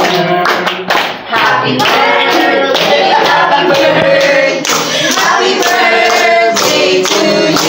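A group of people singing together, with hands clapping along to the beat.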